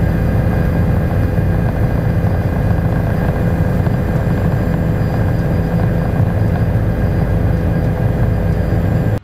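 Bell 407GXi helicopter in cruise flight heard from inside the cockpit: the main rotor and its Rolls-Royce M250 turboshaft engine make a steady, loud, deep rumble with a faint high whine above it.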